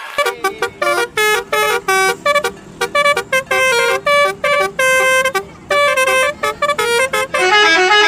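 Basuri telolet bus horn playing a tune of short, separate horn notes at changing pitches, ending in a quick run of notes.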